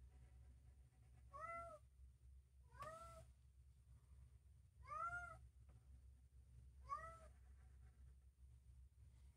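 A domestic cat meowing four times, roughly every two seconds. Each meow is short and faint and rises then falls in pitch.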